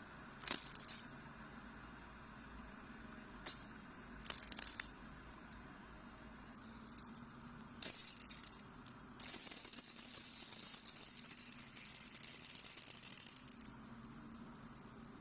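Metal fidget spinner toy: a few short metallic rattles and clicks, then a continuous high metallic whirring rattle for about four seconds as it spins, fading out.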